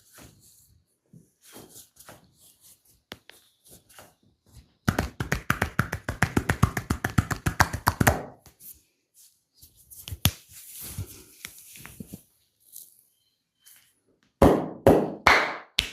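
Massage percussion by a masseur's hands: soft rubbing and light taps, then a fast run of hand strikes at about ten a second for some three seconds. Near the end come four loud slaps about half a second apart.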